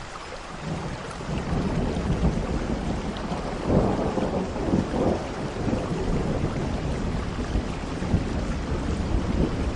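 Steady rain falling, with a low rumble of thunder swelling in about a second in and loudest around the middle.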